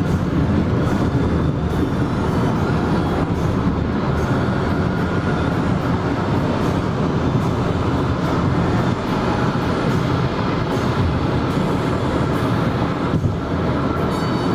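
Steady, loud rumble of a vehicle in motion, with no clear rhythm or distinct events.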